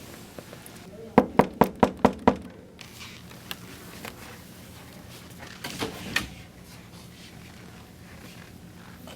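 Six quick, even knocks on a door, about a second in, then a few fainter thuds several seconds later.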